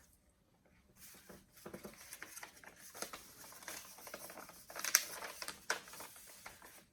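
Paper and cardboard rustling and crinkling as books and papers are handled, with scattered small clicks and taps; the loudest crackle comes about five seconds in.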